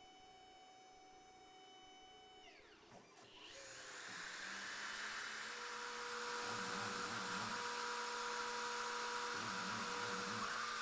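A steady pitched tone bends down and fades out about three seconds in. The high-speed spindle of a PCB milling machine then spins up and runs with a loud hissing whine. Twice a lower warbling whir joins it for about a second.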